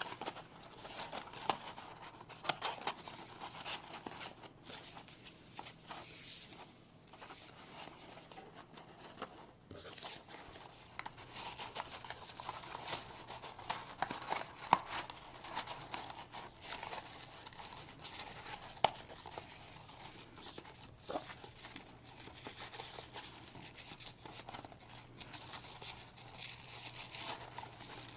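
Cardstock and ribbon rustling and crinkling as hands fold a small paper box closed and tie a ribbon around it, with scattered small taps and clicks.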